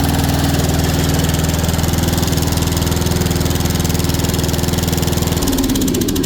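Snapper 28-inch riding lawnmower's engine running steadily with the blade not engaged. Near the end its even note breaks up and the engine starts to die down.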